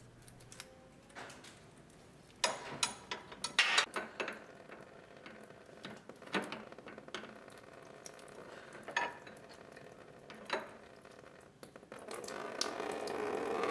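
Wrench clicking and knocking against the plastic radiator drain plug as it is loosened. About two seconds before the end, coolant starts running out of the drain into a drip pan with a steady splashing hiss.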